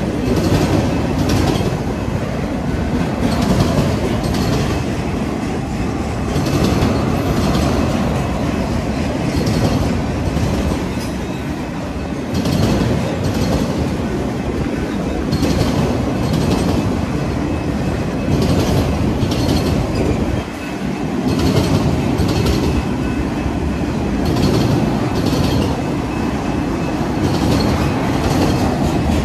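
Loaded freight flatcars rolling past close by: a steady rumble of steel wheels on rail, with pairs of clicks about every three seconds as each car's wheel sets pass over the rails.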